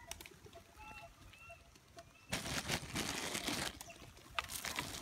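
Pigeons taking off together: a flurry of wing flaps starts about two seconds in and lasts a second and a half, with a few short flaps after. Faint bird chirps come before it.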